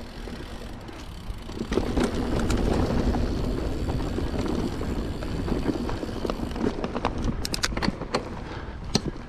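Mountain bike rolling along a trail: steady tyre rumble with loose rattling and clicking from the bike, and a few sharper knocks near the end.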